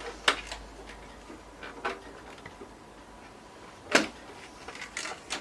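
Plastic front panel of a Dell Vostro 270s desktop being pried off its case, its clips letting go with a few sharp separate clicks and snaps, the loudest about four seconds in.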